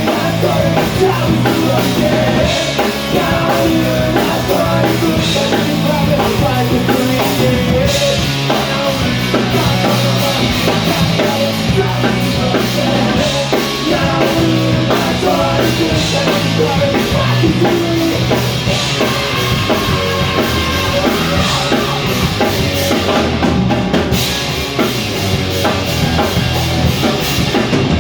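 Rock band playing live: full drum kit with electric guitars and bass, loud and driving, with some singing.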